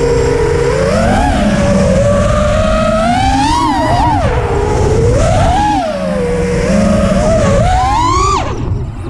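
Brushless motors (T-Motor F40 Pro III, 2400kv) on a 5-inch FPV freestyle quadcopter screaming, the pitch swinging up and down with the throttle about four times. Near the end the pitch climbs sharply, then the sound drops away as the throttle is cut.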